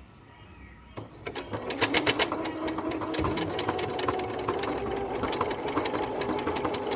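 Elna 6200 Decorator's Touch sewing machine starting about a second in and then running steadily, the needle stitching with a rapid ticking rhythm over the motor's hum.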